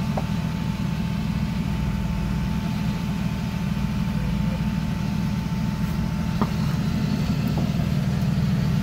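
Jeep Comanche rock crawler's engine idling steadily.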